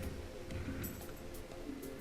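Background music with held, changing notes and a few light ticks.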